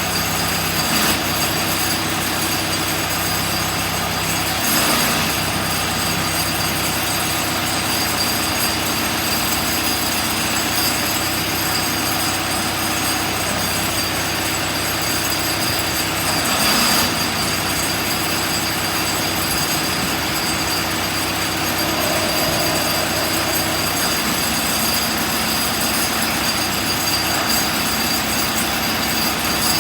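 Case 580C backhoe loader's four-cylinder diesel engine running steadily, with brief louder swells about five seconds in and again around seventeen seconds.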